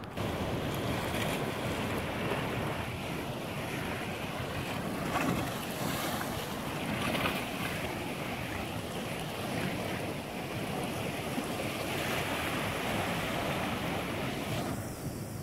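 Sea surf washing and breaking against a rocky shore, a steady rush that swells and eases, with wind buffeting the microphone.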